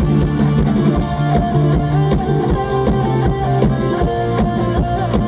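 Mor lam band playing an instrumental passage: guitar melody over bass and drum kit with a steady beat.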